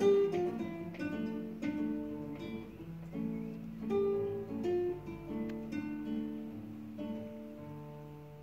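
Duet of two classical guitars plucking a slow piece in several voices. The last chord rings out and fades away over the final second or two.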